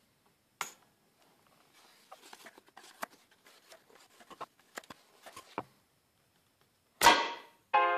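Homemade pump-action air rifle being handled and cocked, a run of small clicks and knocks, then a single loud shot about seven seconds in. Piano music starts right after.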